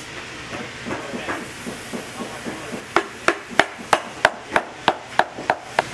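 Shoemaker's hammer tapping a leather piece down onto the bottom of a hiking boot: about ten sharp strikes, roughly three a second, starting about halfway through.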